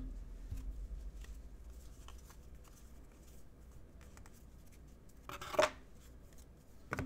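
Trading cards being handled and flipped through by hand: faint scattered clicks and slides, with one louder brief rustle a little over five seconds in.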